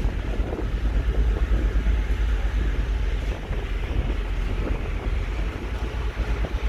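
Wind buffeting the microphone: a rough, uneven rumble with a hiss above it, steady throughout.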